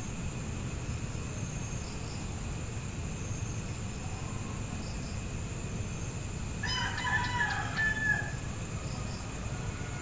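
A rooster crows once, about seven seconds in, over a steady low rumble and a continuous high-pitched whine.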